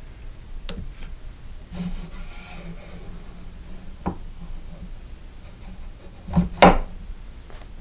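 Hands handling an AR-15 upper receiver and its handguard rail on a workbench: quiet rubbing, a single click about four seconds in, and two sharp knocks in quick succession near the end, which are the loudest sounds.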